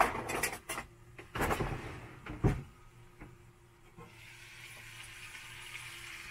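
Rummaging in a galley cupboard: knocks and rattles of utensils and cookware, the loudest a sharp knock about two and a half seconds in. From about four seconds in, a steady sizzle of chicken frying in a pan.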